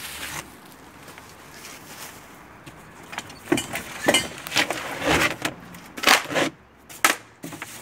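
Hands rummaging through a full box of tools and parts: irregular clattering knocks and clinks, starting about three and a half seconds in.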